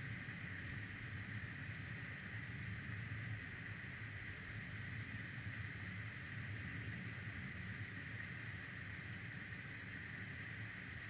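Steady outdoor ambience from an eagle nest camera's microphone: a low, wavering rumble like wind on the mic under an even hiss, with no distinct calls or knocks.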